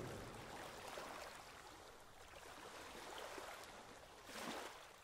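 Faint hiss of a logo sound effect dying away, with one brief soft whoosh about four and a half seconds in.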